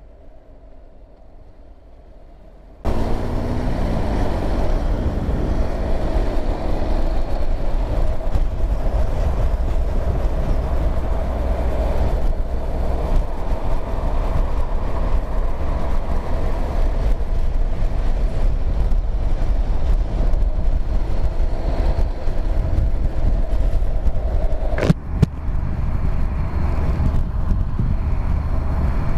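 Heavy wind noise and distortion on the motorcycle-mounted camera's microphone while riding, with the motorcycle's engine running underneath. It cuts in suddenly about three seconds in after a quieter start, with a brief break near the end.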